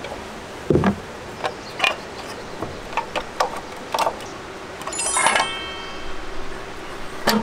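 Irregular clicks and knocks of objects being handled, with a ringing clink about five seconds in and a sharper knock near the end.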